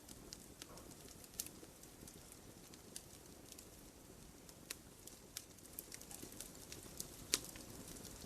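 Campfire crackling: irregular sharp pops and snaps of burning wood over a soft, steady rush of flame. The loudest pop comes near the end.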